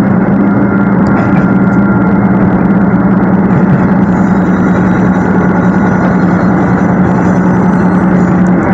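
Tarumi Railway Hi-Mo 330 diesel railbus running along the line, heard from inside the car: its diesel engine holds a loud, steady drone with a constant hum, under a dense rumble of running noise.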